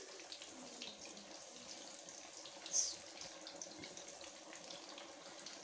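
Bread-crumbed chicken noodle cheese squares sizzling in hot oil in a kadhai: a steady, fairly quiet hiss with many small crackling pops, and a brief louder burst of sizzle about three seconds in.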